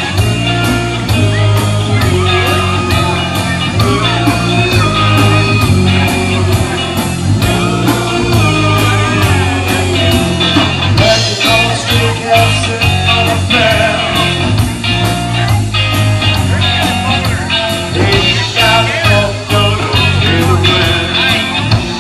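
Live rock band playing through a PA: a man singing into the microphone over electric guitars, bass and drums keeping a steady beat.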